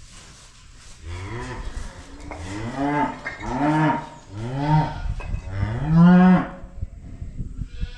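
Cattle mooing: five short moos in a row, each rising then falling in pitch, the last one the loudest.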